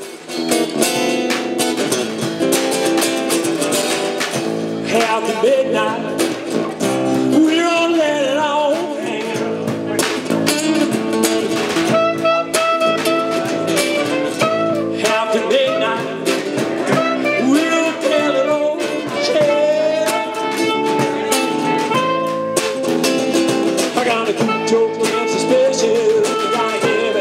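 Live acoustic band music: strummed acoustic guitars, an acoustic bass guitar and a clarinet, with a drum and cymbal.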